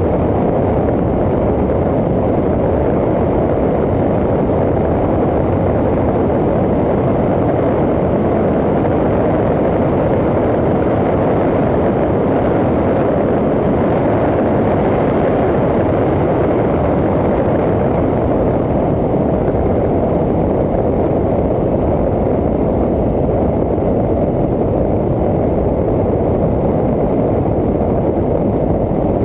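Steady, loud rumble of wind and road noise on the microphone of a camera mounted on a moving vehicle travelling at road speed, with no distinct engine note standing out.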